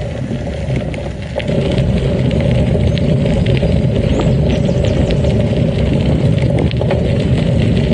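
Gravel bike rolling fast over a dirt-and-gravel path: tyre crunch and rumble with many small clicks and rattles from the bike, louder from about a second and a half in.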